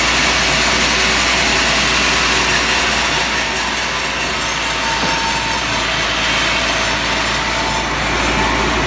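Power saw cutting through ulin (Borneo ironwood) timber: a steady, dense cutting noise with the saw's engine running underneath. The cut turns brighter and harsher about two and a half seconds in.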